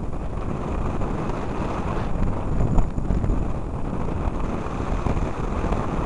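Strong, gusty wind buffeting the microphone of a camera mounted on a hang glider in flight: a loud, unsteady low rumble of airflow, with one brief louder bump about three seconds in.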